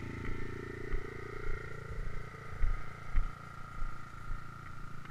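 Stomp pit bike's small single-cylinder four-stroke engine running slowly at low revs, dropping off over the first couple of seconds. Several dull thumps are heard in the middle.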